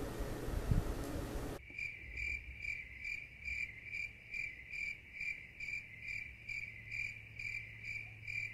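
Cricket chirping sound effect, a steady run of evenly spaced high chirps at about three a second, starting about a second and a half in after some room hiss. It is the stock 'crickets' gag for an empty, silent room.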